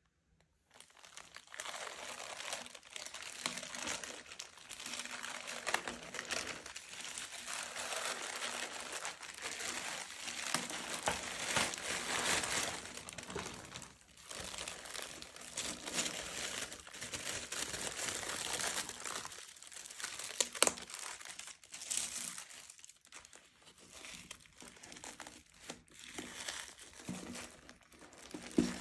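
Plastic packaging bag and tissue paper crinkling and rustling as they are handled and pulled open, in a continuous irregular crackle. A few sharper crackles stand out, the loudest about two-thirds of the way through.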